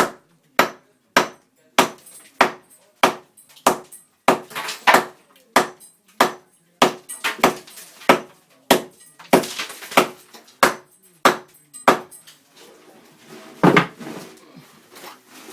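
Hammer blows struck in a steady rhythm, about one every 0.6 seconds, each with a short ring, knocking into a cinder block wall. After a brief pause near the end comes one heavier blow.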